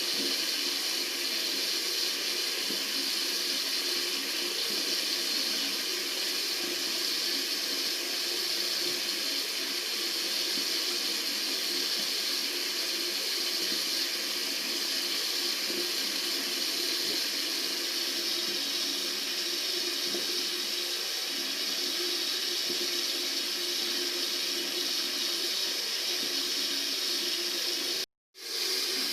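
Tap water running steadily from a faucet into a sink, an even rushing hiss. The sound drops out for about half a second near the end, then resumes.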